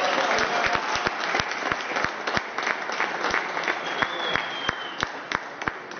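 A small group of people applauding. The clapping is dense at first, then fades and thins to scattered individual claps near the end.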